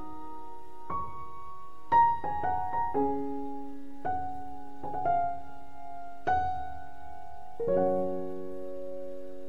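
Background piano music: slow, gentle notes and chords struck about once a second, each left to ring.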